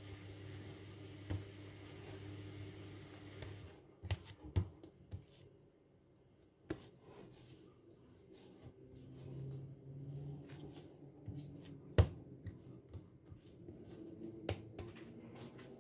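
Bread dough being kneaded and handled by hand on a work surface, with soft rubbing and scattered knocks, the loudest a single sharp knock about twelve seconds in. A low steady hum in the first few seconds stops abruptly.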